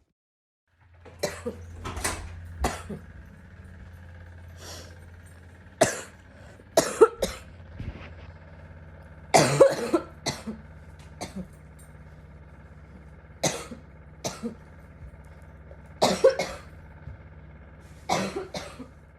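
A girl with bronchitis coughing repeatedly, in single coughs and quick pairs a second or more apart, over a steady low hum.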